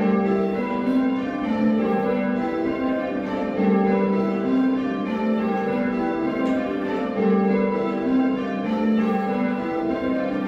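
A ring of six church bells, a 1978 Whitechapel six with the tenor in G, rung full circle in call changes. The strikes follow one another in a steady, even rhythm, with their tones overlapping. The bells are heard from the ringing chamber below them.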